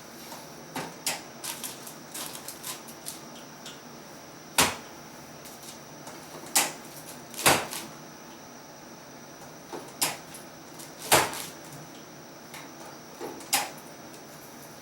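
Chiropractic Thompson drop table clacking: a series of sharp knocks, about six loud ones at uneven intervals with lighter clicks between, from the table's drop sections.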